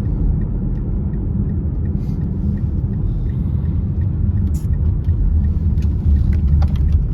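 Car in motion heard from inside the cabin: a steady low rumble of engine and road noise, with a faint regular ticking.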